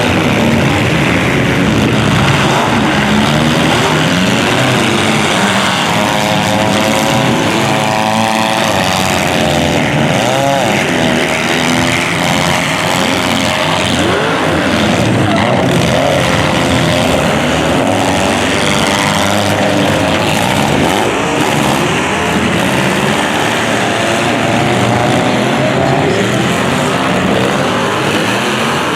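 Demolition derby car engines running loud and revving together, their pitches climbing and falling over one another.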